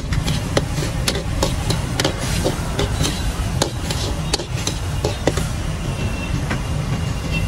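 Metal skimmer ladle scraping and clanking against a steel wok as food is stir-fried, sharp irregular knocks about twice a second over a steady low rumble.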